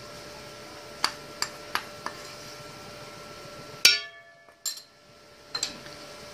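A spoon clinking against a dish while food colouring is spooned over rice: four light clinks in the first two seconds, a louder one about four seconds in, and a few more near the end, over a steady hum that drops away briefly after the loud clink.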